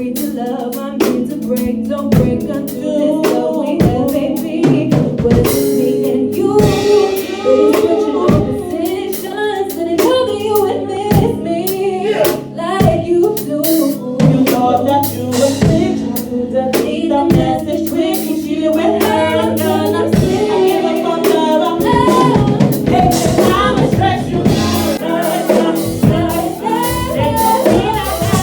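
A song with a drum-kit beat of snare and kick hits under a singing voice.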